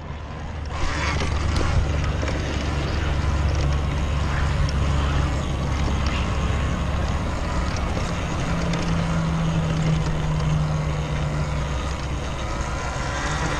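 Riding noise from a Talaria Sting electric dirt bike moving over sandy dirt: a steady rush of wind and tyre noise with low rumble, building over the first second and then holding even.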